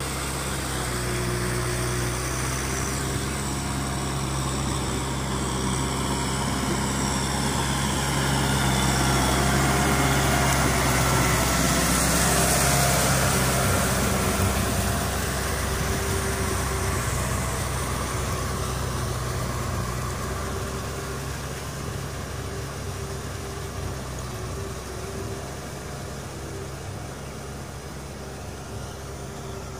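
Kubota tractor's diesel engine running steadily under load as it pulls a rotary tiller through flooded, muddy ground, with the rushing, splashing noise of churned mud and water. The sound is loudest about halfway through and grows quieter toward the end.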